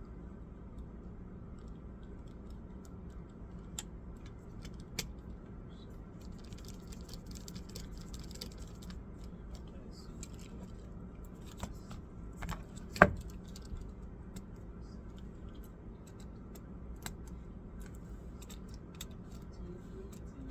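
Scattered small clicks and taps of laptop parts and tools being handled, with a short rustle about 7 seconds in and one sharp click about 13 seconds in, over a steady low hum.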